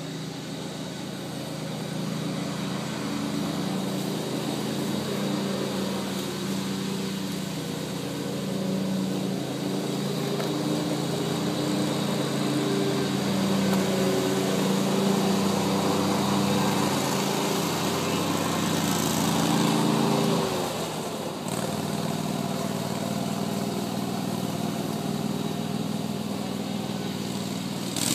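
A small engine running steadily, its note dipping briefly about twenty seconds in.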